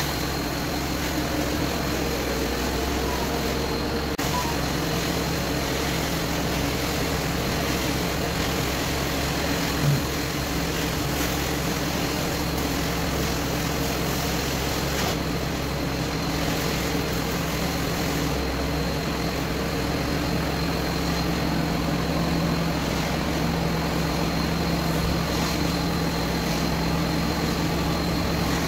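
Carpet extraction machine's vacuum motor running steadily with a thin high whine while the cleaning wand works the carpet, and a brief knock about ten seconds in.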